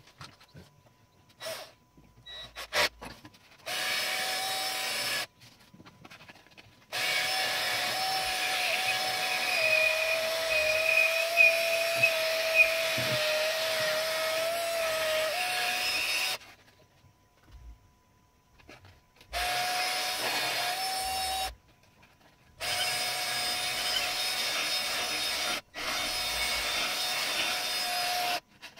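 A small handheld electric power tool run in bursts of a few seconds at a time, several times over. In the longest burst its motor whine drops in pitch for several seconds as it bears on the work, then comes back up. A few clicks and knocks come before the first burst.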